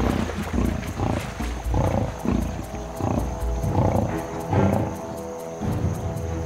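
Lionesses growling over a Cape buffalo kill in a run of short growls, about two a second, over background music with held notes.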